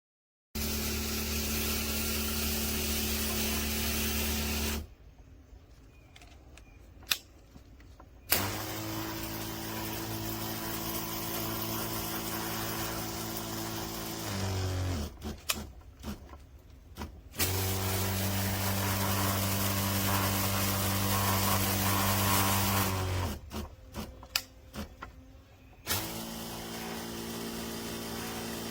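12V diaphragm water pump running with a steady electric-motor hum four times, each run winding down in pitch as it is switched off. Between runs there are sharp clicks and knocks.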